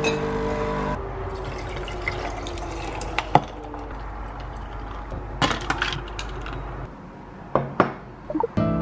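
Pod coffee machine's pump humming as it dispenses, stopping about a second in, then liquid pouring steadily into a glass, with a few sharp clinks of glass.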